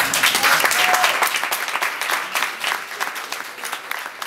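Audience applauding, starting suddenly and thinning out toward the end.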